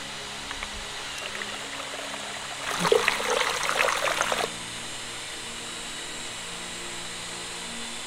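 Water from a small rocky trickle splashing into a cut section of green bamboo as it fills, for about two seconds in the middle, over a steady background hiss.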